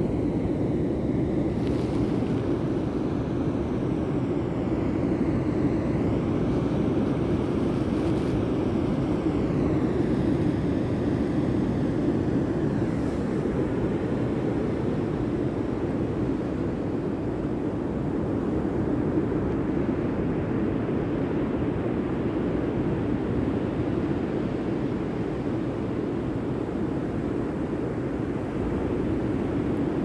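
Steady rush of surf breaking on a sandy beach.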